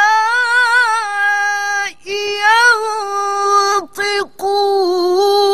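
A woman's melodic Quran recitation (tarannum), the words drawn out into long held notes with wavering ornaments and turns, broken by short pauses about two and four seconds in.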